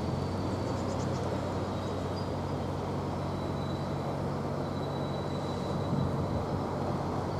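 A train standing or moving slowly at the platform: a steady low hum under a wash of noise, with a faint thin high whine.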